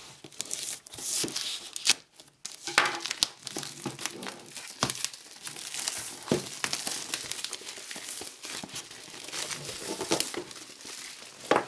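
Plastic shrink-wrap film being torn and pulled off a cardboard box by hand, crinkling and crackling irregularly.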